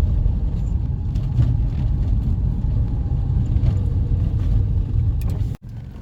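Holden Commodore driving along, a steady low engine and road rumble. It cuts off abruptly near the end.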